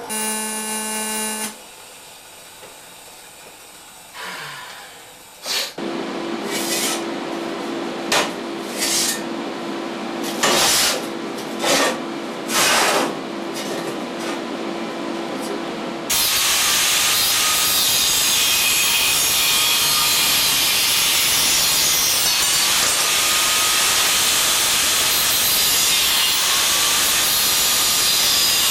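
Angle grinder smoothing the edges of stainless steel bars: a loud, steady grinding noise with a faint wavering whine that starts suddenly about halfway through. Before it, a steady hum is broken by several short loud bursts.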